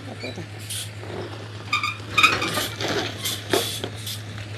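Semi-truck hauling a shipping container creeping through a tight turn: a steady low engine hum with scattered metallic clanks and clinks, and a few short hisses.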